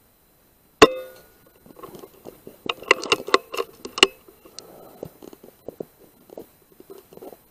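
A single sharp rifle shot with a brief metallic ring a little under a second in, then a quick string of clicks and rattles about three to four seconds in, with scattered faint ticks after.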